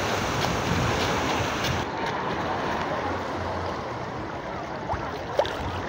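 Shallow sea water washing and splashing around swimmers, with wind buffeting the microphone, strongest in the first couple of seconds.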